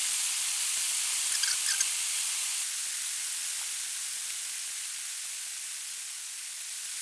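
A steady high hiss, with a few light metallic clinks about a second and a half in, as parts are handled on a bare diesel engine block.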